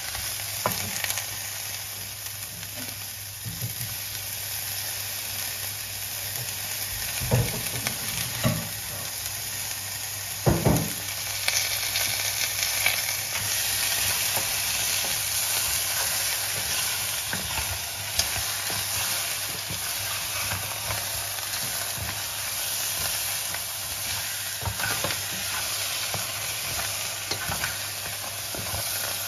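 Crab pieces with onion and garlic sizzling steadily in a frying pan. The food is stirred, with a few knocks of the utensil against the pan about seven to eleven seconds in.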